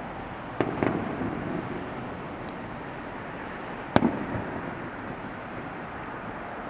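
Fireworks shells bursting at a distance: two bangs close together about half a second in, then a sharper single bang about four seconds in, each trailing off in a brief rumble, over a steady background hiss.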